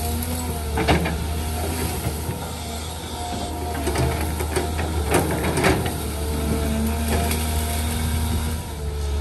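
Caterpillar 320 hydraulic excavator working, with a steady low diesel drone and a higher tone that comes and goes as the arm moves. Sharp cracks of branches snapping as the bucket pushes through brush, once about a second in and a cluster around five seconds in.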